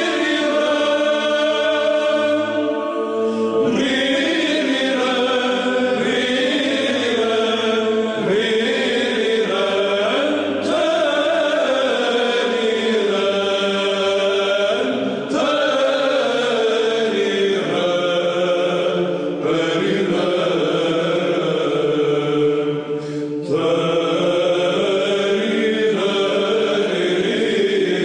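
Orthodox Byzantine chant sung by a choir: long melodic phrases held over a steady low drone note, pausing briefly between phrases.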